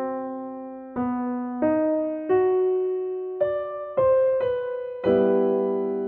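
Background music: a slow piano melody, single notes struck one after another, each left to ring and fade before the next.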